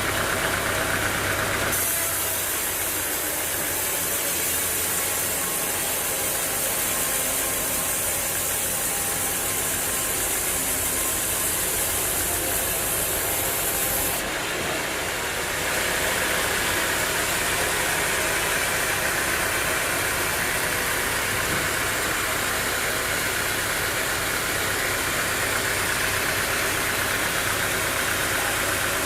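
Sawmill machinery running with a steady mechanical noise and a constant high hiss. About halfway through the high hiss drops away and a brighter mid-range noise takes over, as if the machine's work changes.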